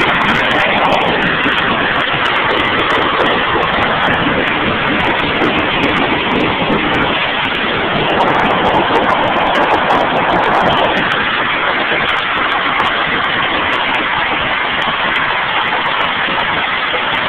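Hailstorm: hailstones falling hard and striking surfaces in a loud, steady, dense rattle of countless small impacts.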